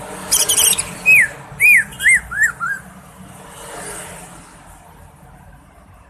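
Cucak ijo (leafbird) singing: a quick burst of high chattering notes, then five loud whistled notes, each rising and falling, stepping down in pitch.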